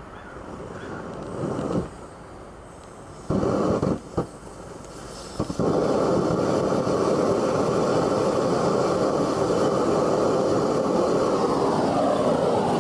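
Homemade gas burner, a torch pencil tip fitted with a 0.030 in MIG tip, roaring as the gas is turned up. The roar comes in fits about three and four seconds in, then runs steady from a little before halfway.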